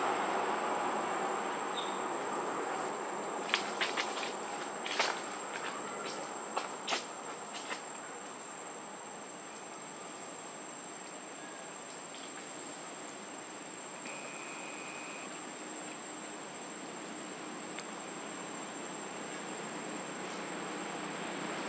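Insects droning steadily in the trees, with a thin high whine held throughout. A broader rumble fades away over the first few seconds, and a handful of sharp clicks fall between about three and seven seconds in.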